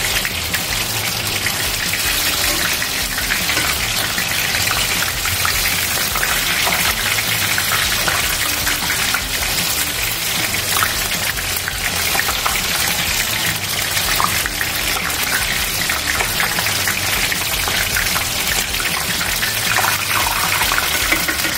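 Battered shrimp deep-frying in hot oil: a steady sizzle with fine crackling throughout.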